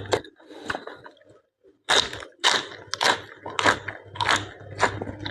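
A person chewing blanched blood cockles close to the microphone, a chew about every 0.6 seconds after a brief pause near the start.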